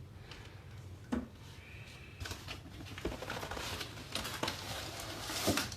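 Cardboard box and packaging being handled and moved: scattered knocks with scraping, rustling cardboard, loudest near the end.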